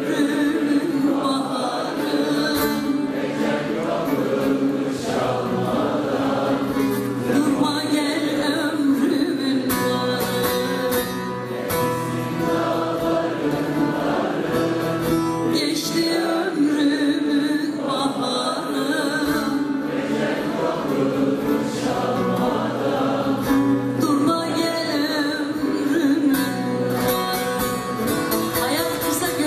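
Turkish folk song (türkü) performed live, with voices singing over bağlama (long-necked saz lute) accompaniment.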